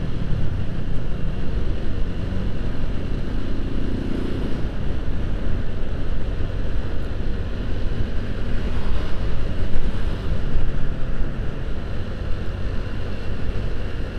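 Wind buffeting the microphone of a moving motorcycle, with the engine and road noise running steadily underneath.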